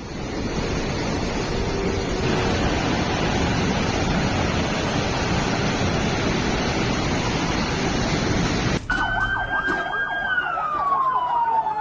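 A steady, loud rushing noise like storm wind or rushing water cuts off suddenly near the end. An emergency siren follows, wailing on one high tone and then sliding down in pitch.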